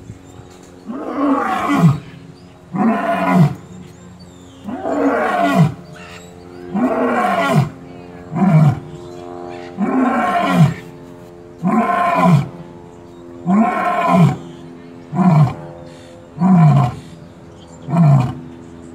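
Male lion roaring in a bout of deep grunting roars, about eleven calls, each falling in pitch. The calls come every one and a half to two seconds and grow shorter and closer together toward the end.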